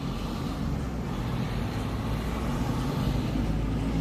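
Steady low rumble of motor traffic, growing slightly louder.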